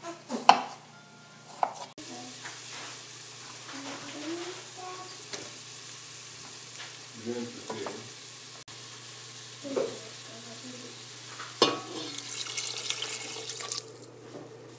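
A knife chops on a wooden cutting board about half a second in. Then chopped onion, carrot, celery and diced potato sizzle in olive oil in a steel stockpot, with a few knocks as a wooden spatula stirs them. The sizzle grows louder near the end.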